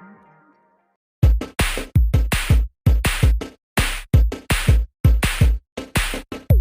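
Background music: a soft synth passage fades out, and after a short silence an electronic drum-machine beat with heavy kick hits starts about a second in.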